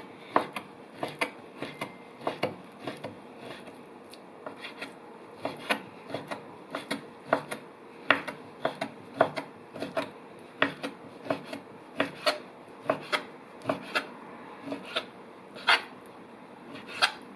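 Knife or cleaver chopping on a wooden cutting board, mincing turkey meat for laab in quick, uneven strokes of about two to three a second.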